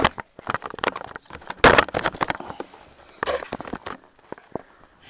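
Rapid knocks, clicks and rustling close to the microphone, with a loud rough burst about a second and a half in and another shorter one just past three seconds.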